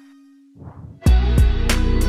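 Background music. The held last note of the intro jingle fades out, then about a second in a music track starts with deep bass and a steady beat.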